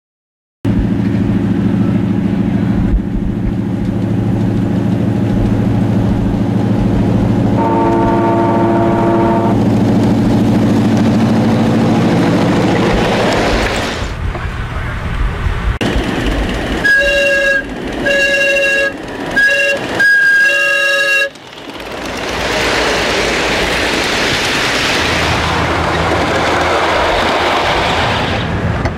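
Miniature railway locomotive on a ridable-scale live steam track: a steady low drone of the train running, a short whistle blast about eight seconds in, then a string of about five whistle toots about halfway through, the last held longest. A rushing noise swells up afterwards.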